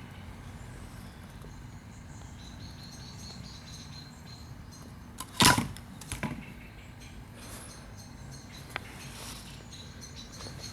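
Quiet steady background noise, broken about five and a half seconds in by one sharp clack and a lighter one just after, as of something being handled and set down.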